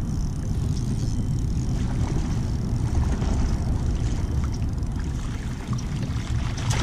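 Wind buffeting the microphone of a kayak-mounted action camera: a steady low rumble, with a few faint ticks over it.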